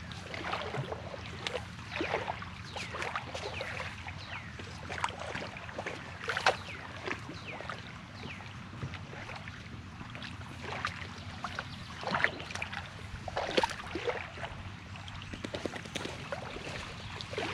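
Rope being handled and tied on, with scattered clicks and knocks, over a steady low hum. Many short high chirps, each falling in pitch, run through the whole stretch.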